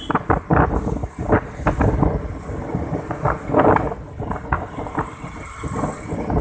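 A vehicle's rumble while riding along a road, with wind buffeting the microphone in irregular gusts.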